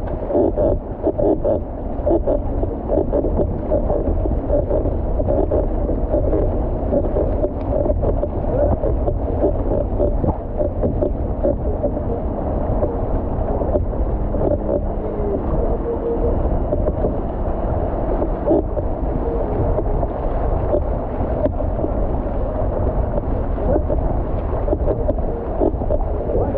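Steady rush and splash of water along the hull of an outrigger canoe paddled hard through a motorboat's wake, with a low rumble throughout and a steady drone that fits the motorboat's engine running just ahead.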